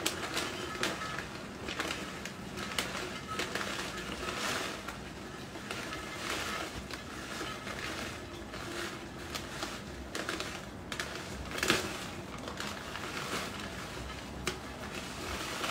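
Dried hibiscus calyces being poured from a plastic bag into a glass jar: irregular rustling and crinkling with scattered light ticks.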